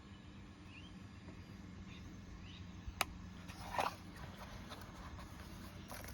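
Quiet handling of the 3D-printed prop's parts: one sharp click about halfway through and a short scrape just after, over a low steady hum. Two faint short rising chirps come in the first half.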